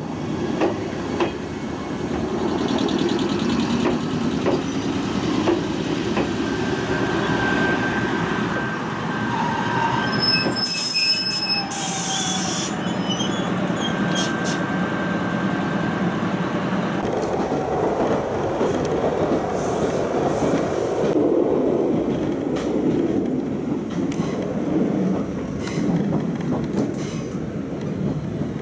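Ichibata Electric Railway train noise heard from on board, with another train passing close alongside. There is a short burst of hiss about eleven seconds in, and in the second half wheels clatter over the rail joints as the train runs.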